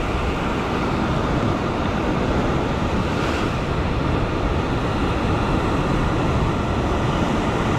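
Ocean surf surging and breaking over coastal rocks, a steady rushing noise, with wind on the microphone.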